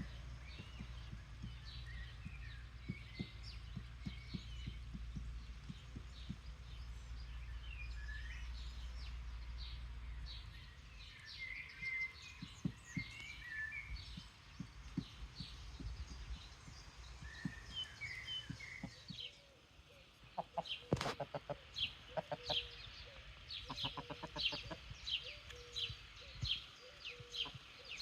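Farmyard ambience of chickens clucking and small birds chirping, over a low rumble in the first part. About two-thirds of the way through it changes to a busier run of rapid chirps and clicks.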